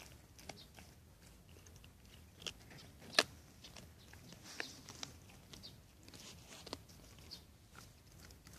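A dog gnawing a bone, with irregular crunches and cracks as its teeth work the bone; the loudest crack comes about three seconds in.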